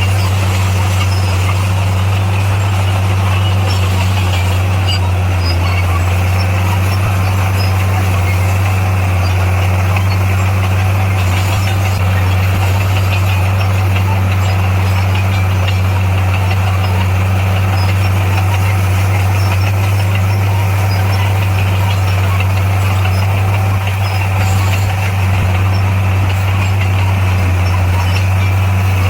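Diesel engine of heavy earth-moving equipment running at a steady low drone, with no change in pitch.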